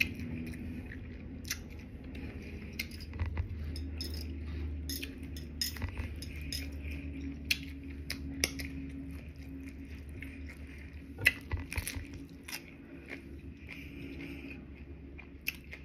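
Close-miked chewing of a crunchy hard-shell taco, with scattered sharp crunches and mouth clicks over a steady low hum. The loudest click comes about eleven seconds in.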